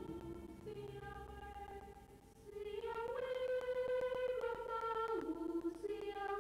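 Background music: a slow melody of long held notes that change pitch every second or so.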